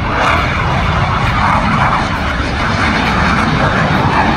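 Military jet fighter flying a low pass, its jet engine noise loud and steady.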